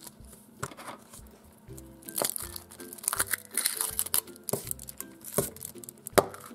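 Foil wrapping of a Kinder Surprise egg crinkling and rustling as it is unwrapped, then the yellow plastic toy capsule being pried open, with a sharp click near the end. Soft background music plays throughout.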